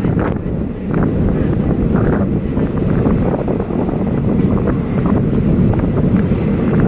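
Wind buffeting the microphone on a moving passenger train, over the train's low running rumble.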